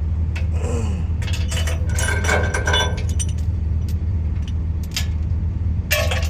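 Steel chain clinking and rattling as it is moved and hooked around a brace, over the steady low hum of an idling engine.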